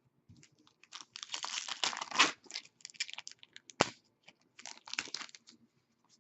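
2015-16 SP Authentic hockey trading cards being handled and shuffled: rustling and crinkling in irregular bursts, with one sharp click about four seconds in.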